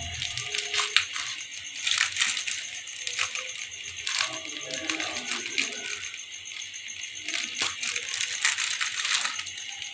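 Irregular ticking and crackling from an aluminium pot of water heating toward the boil on a gas stove, over a steady hiss.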